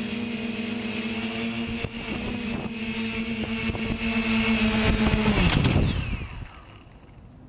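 Quadcopter's Sunnysky brushless motors and 9-inch propellers humming at a steady pitch and growing louder as it comes down low. Then the pitch falls and the hum winds down and stops about six seconds in as the quad lands and its motors spin down.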